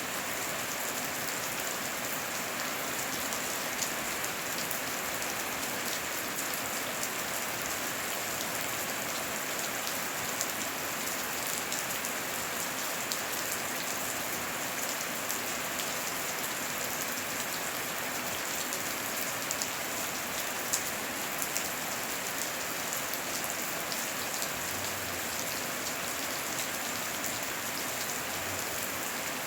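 Steady heavy rain falling on a surface, a dense hiss with many individual drop ticks.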